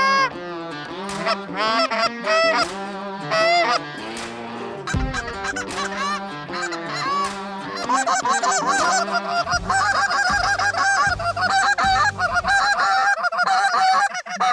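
Geese honking, many overlapping calls from a flock, the chorus growing denser about halfway through.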